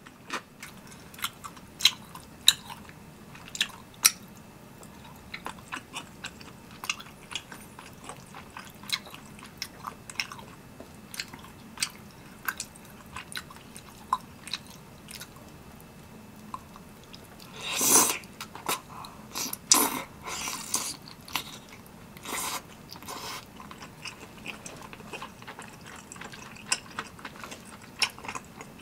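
Close-miked chewing of spicy tteokbokki, chewy rice cakes in sauce: short wet smacks and mouth clicks scattered throughout, with one louder noise lasting about half a second about two-thirds of the way through.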